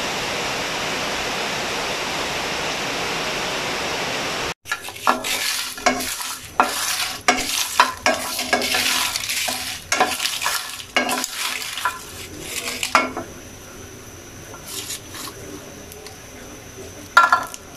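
Steady rain hiss for the first four and a half seconds. Then dried jackfruit seeds are stirred as they dry-roast in a nonstick frying pan: a spatula scrapes and the seeds clatter against the pan, thinning out after about thirteen seconds to a few clicks as a hand turns the seeds near the end.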